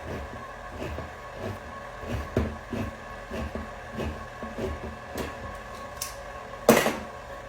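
Pumpkin cake batter of eggs, sugar, oil and pumpkin being mixed by hand in a bowl, the utensil knocking and scraping against the bowl irregularly, with one louder clatter near the end.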